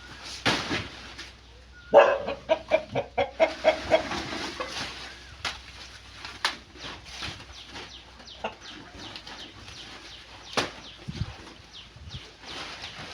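A chicken clucking in a quick run of about eight short calls, about two seconds in, over scattered rustling and sharp clicks.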